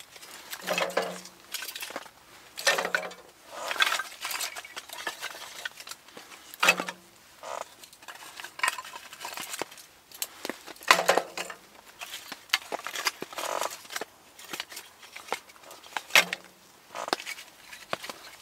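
Split kindling sticks set down one at a time on a steel tent stove's top and its folding wire side rack: wood knocking and clattering on metal in about a dozen irregular knocks.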